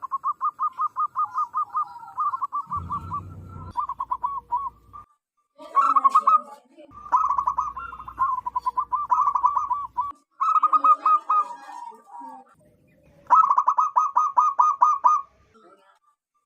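Zebra dove (perkutut) cooing: fast runs of short, repeated, bubbling notes, about five or six a second, in several bouts broken by brief pauses.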